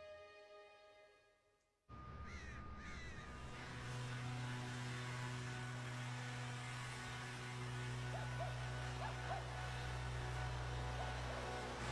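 A motor humming steadily and low, starting about two seconds in after the music fades to silence, with a few short bird calls over it.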